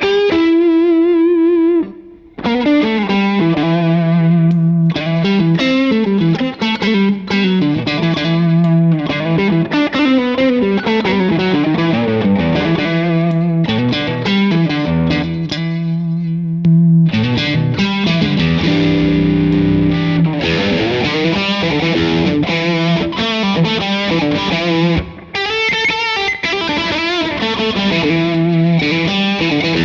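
Electric guitar played through stacked overdrive pedals: a driven, distorted riff of held chords and single notes, with a short break about two seconds in.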